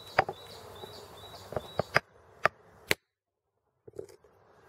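A hard hand-held stone striking a sawn piece of deer antler to break it along the cut. It gives a series of sharp, irregular knocks, then a short gap, then two more.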